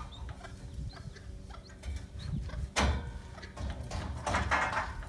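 Chickens clucking in the background, with one sharp knock a little under three seconds in and a short scraping rush soon after, typical of scaffold pieces being handled.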